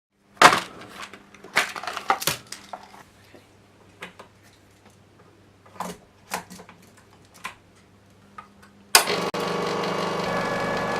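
A series of sharp clicks and clunks of something being handled, then about nine seconds in a loud, steady mechanical whirring starts and keeps going.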